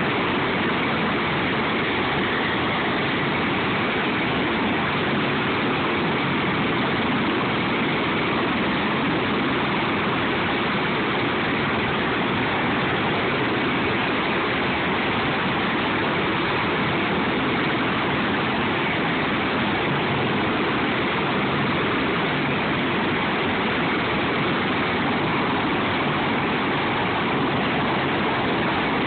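Sikorsky MH-53E Sea Dragon helicopter running on the flight line with its rotors turning: a loud, steady rush of turbine and rotor noise.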